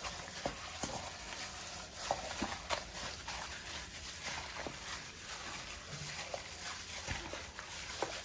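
Hands kneading raw pork in a sticky barbecue marinade: irregular soft wet squelches and slaps, several a second, as the sauce is worked into the meat.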